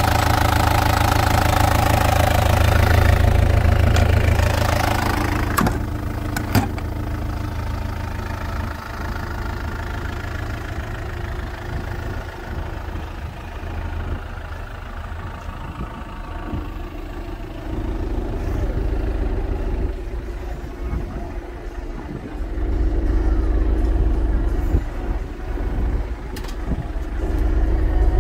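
Kubota U55-4 mini excavator's four-cylinder diesel engine idling steadily. It is loud and close at first, then quieter after two sharp knocks about six seconds in.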